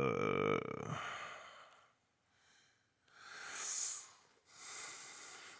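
A man's voiced sigh lasting about a second and a half, followed by two breaths a few seconds later.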